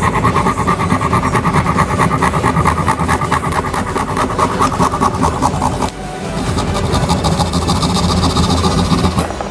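Small motor-driven wire saw buzzing steadily as its thin wire cuts a groove around a plastic syringe barrel, with a brief dip about six seconds in.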